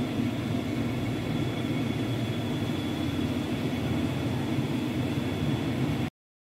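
Steady droning background noise with a faint high whine running through it, cut off abruptly about six seconds in.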